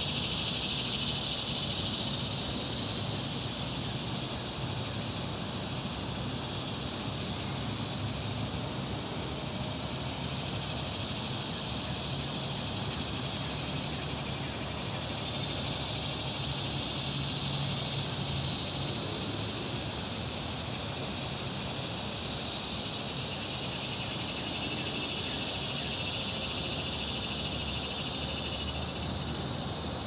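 Insect chorus, a dense high buzzing hiss that swells and fades slowly several times, over a steady low background rumble.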